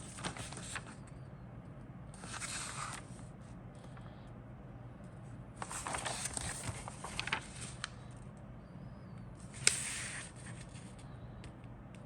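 Packaging and kit parts rustling and crinkling as they are handled, in three bursts, with a sharp click at the start of the last one, over a low steady hum.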